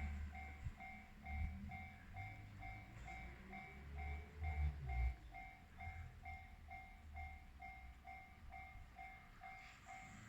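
Japanese railway level crossing's electronic warning bell ringing, a two-tone ding repeating evenly a little over twice a second, over a low uneven rumble.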